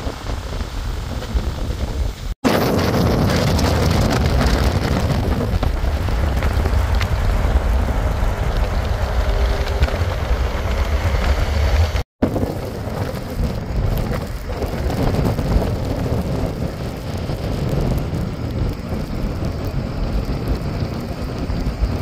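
Steady wind and highway traffic noise in a snowstorm, a dense low rumble with no distinct events, cutting out briefly twice between clips.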